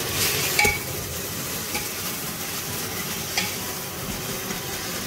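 Masala paste sizzling as it is spooned into hot oil and browned garlic in a pressure cooker, with a steady frying hiss and a few short clinks of the spoon against the dish.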